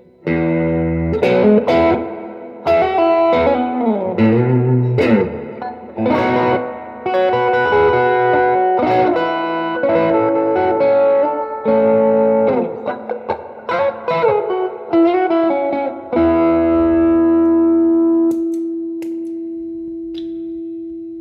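Fender Stratocaster with Klein Jazzy Cat pickups played through a Fender '68 Custom Princeton Reverb amp with a Celestion Gold 10-inch speaker, close-miked, with a touch of spring reverb. A phrase of picked chords and single notes with string bends ends on a long held note that slowly fades.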